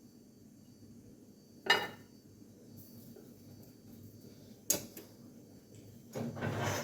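Dishes and cutlery being handled: a sharp clink about two seconds in, another about five seconds in, then a longer clatter near the end.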